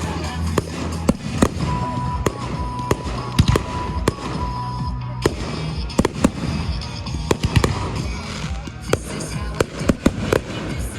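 Fireworks going off: many sharp bangs and crackles at irregular intervals, several a second, over music played through a loudspeaker sound system.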